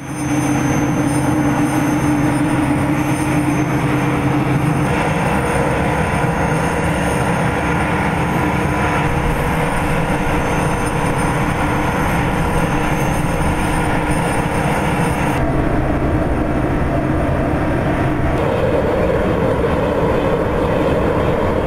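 Airbus A400M Atlas turboprop transport running on the ground: a loud, steady engine and propeller noise with a constant low hum and a faint high whine, its tone shifting abruptly a few times.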